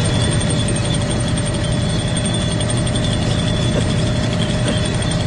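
Cartoon car engine running steadily under an open hood: a continuous low rumble with a steady whine over it.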